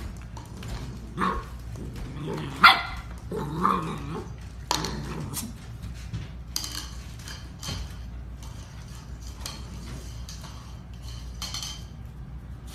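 Golden retriever puppies play-fighting, giving short barks and growls in the first few seconds, the loudest bark about two and a half seconds in. After that, mostly light clicks and scuffling of paws on the hard floor.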